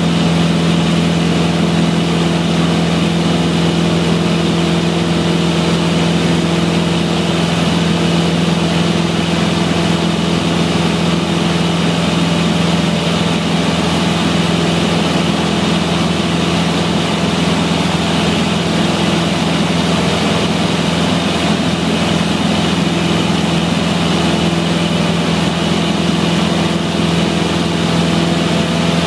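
Single-engine light aircraft's piston engine and propeller running at a steady power, heard from inside the cockpit as an even, unbroken drone with a strong low hum.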